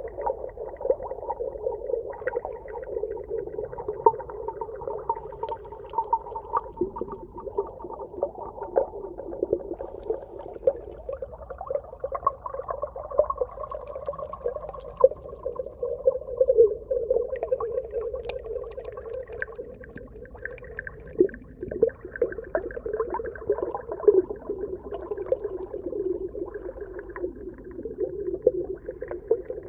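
Underwater ambience: a steady, wavering, muffled drone with many small clicks and pops scattered through it.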